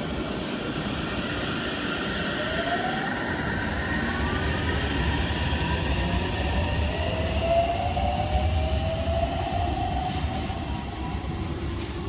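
Aichi Loop Line electric train pulling out of the station: a motor whine rises in pitch as it picks up speed, over the rumble of wheels on the rails.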